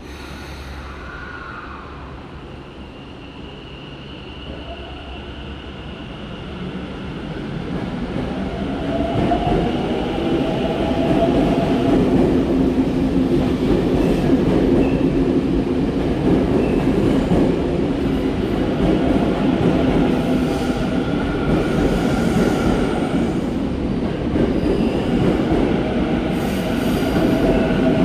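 Tokyo Metro 10000 series subway train pulling out of the station: quiet at first, then growing louder from about six seconds in as it gathers speed, with a dense rumble of wheels on rail and a whine from its traction motors.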